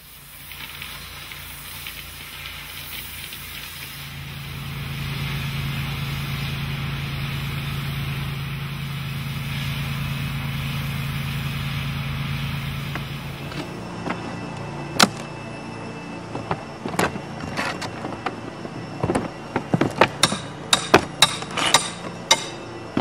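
Pressure washer running with a steady hum under the hiss of its spray on a cedar shake roof. About fourteen seconds in this gives way to irregular sharp knocks and taps, coming fast near the end, as damaged wooden cedar shakes are pried out and replaced on the roof.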